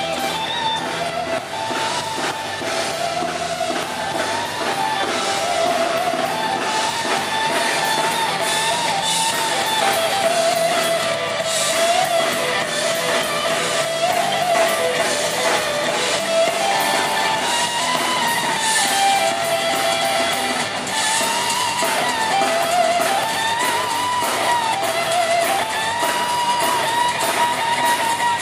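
Live rock band playing: electric guitars strummed over a drum kit, with a melody line wandering up and down above them.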